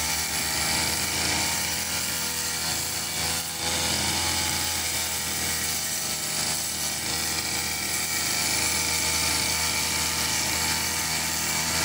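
Old backpack brush cutter's two-stroke engine running steadily under load as its trimmer head cuts long grass.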